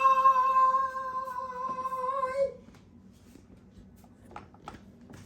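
A woman's voice drawing out a farewell 'bye' as one long, high sung note that cuts off about two and a half seconds in. A few faint taps follow.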